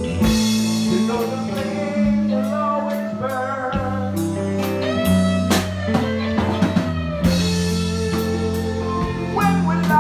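Live band playing: electric guitar, bass guitar and drum kit with cymbal strikes, and a man singing.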